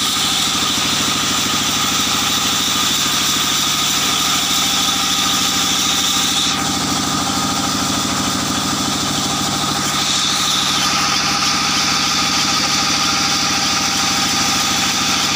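Sawmill machinery running steadily: a continuous motor drone with a fast, even low pulsing.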